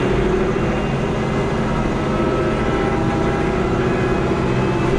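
Tractor engine running steadily, a constant low hum with an even level.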